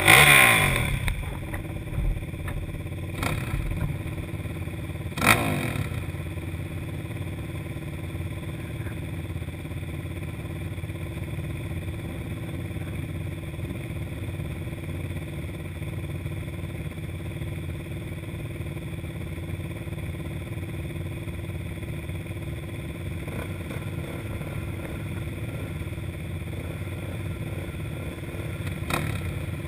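Race quad's engine idling while stationary. There is a sharp rev that falls away right at the start and another quick blip of the throttle about five seconds in, then a steady idle.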